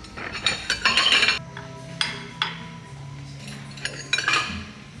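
Ceramic plates clattering as one is taken off a stack, then metal serving tongs clinking against a plate and serving tray. The clatter is loudest about a second in, followed by a few single sharp clinks.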